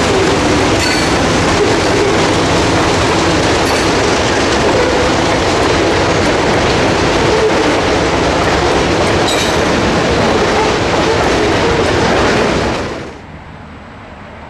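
Freight train of covered hopper cars rolling past close by: a steady rumble and rattle of steel wheels on rail, with occasional clicks. The sound cuts off suddenly near the end.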